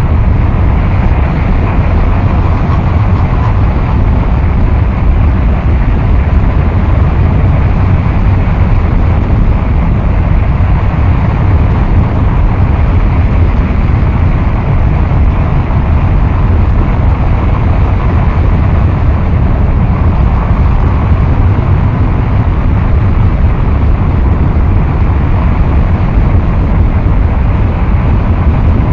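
Noise-music track: a loud, unchanging wall of dense distorted noise, heaviest in a low rumble, with no beat, melody or voice.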